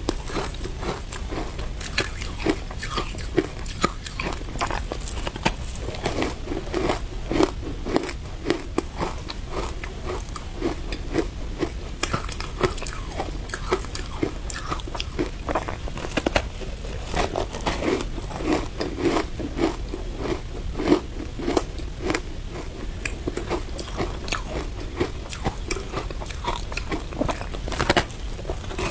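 Biting and chewing a block of compressed shaved ice coated in matcha powder: many quick, crisp crunches one after another as the icy block breaks between the teeth.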